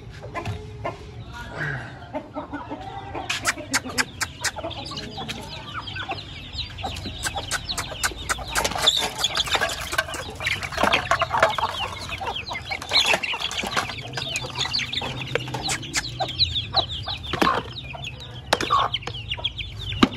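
Chickens and chicks clucking and cheeping, a dense stream of short high cheeps over lower clucks. A quick run of sharp clicks comes about three to five seconds in.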